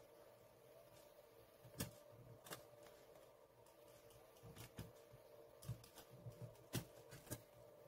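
Faint, irregular clicks and small snaps of a flat-blade screwdriver prying at the plastic case seam of a Xiaomi 10000mAh power bank (PLM13ZM), over a faint steady hum.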